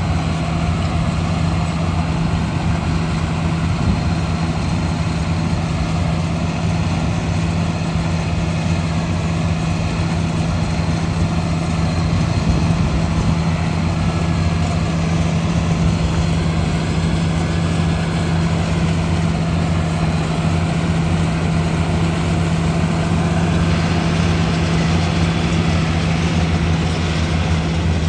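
A vehicle engine running steadily as a low, even hum, with no change in speed.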